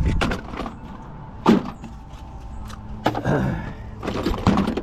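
Metal plumbing stop valves and their boxes knocking and clinking in a plastic parts bin as they are handled and sorted by hand. The knocks come irregularly: a sharp knock about a second and a half in, then a cluster of clatter near the end.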